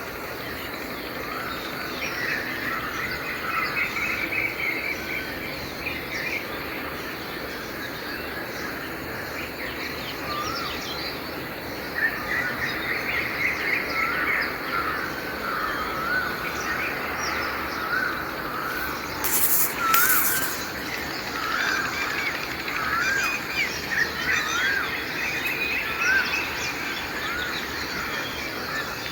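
Early-morning chorus of several songbirds chirping and warbling over a steady background hiss, with two brief harsher noises a little after two-thirds of the way through.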